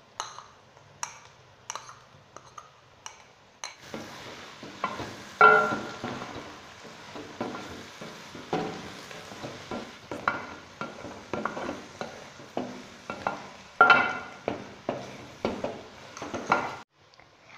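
Wooden spoon tapping and scraping in an aluminium karahi as chopped onions and ginger-garlic paste are stirred. About four seconds in, a steady sizzle of the frying starts under the stirring, and it stops abruptly near the end.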